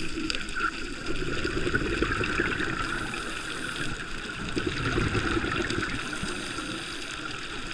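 Muffled underwater noise heard through a camera housing, with the steady bubbling and gurgling of scuba divers' exhaled air.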